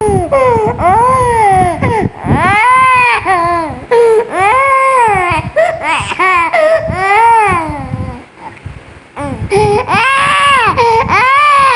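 A young child, sick with a cold, crying in distress: a string of loud wailing cries that each rise and fall in pitch, with a short lull about eight seconds in.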